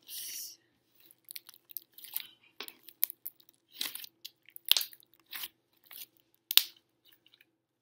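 Mixed slime being kneaded and squeezed by hand, giving irregular sticky clicks and crackles, with two louder pops, one just past the middle and one near the end.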